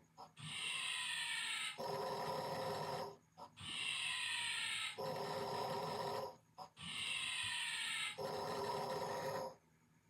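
Snoring in a steady rhythm: a buzzing snore alternates with a falling whistle, three times over in nearly identical cycles.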